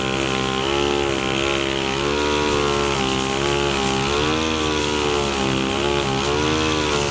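Two-stroke petrol brush cutter running at working speed, its engine pitch rising and dipping as the cutting head works through grass.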